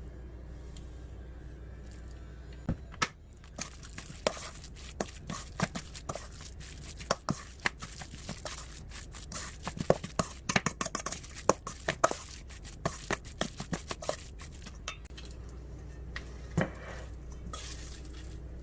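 Close handling noises: an irregular run of light clicks, taps and rustles from about three seconds in until near the end, busiest in the middle, over a steady low hum.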